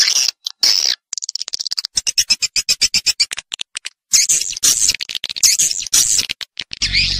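Recorded swiftlet calls played as a swiftlet-house lure sound: rapid clicking trills and twittering chirps in quick repeated bursts. Near the end come curved chirps over a deep pulsing hum.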